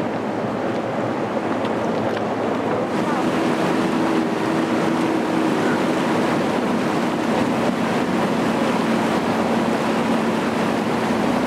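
River passenger boat under way: its engine running steadily, with water rushing past the hull and wind on the microphone. The low engine hum grows a little louder about three seconds in.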